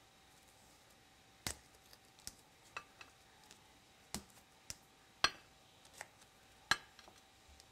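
Small plastic slime containers being twisted apart and set down, giving about eight sharp plastic clicks and taps at uneven intervals; the loudest come a little after the middle and near the end.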